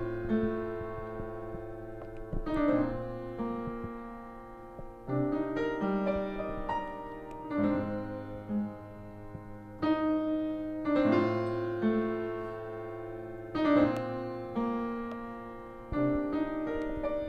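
Slow piano chords, a new chord struck about every two and a half seconds and left to ring and fade.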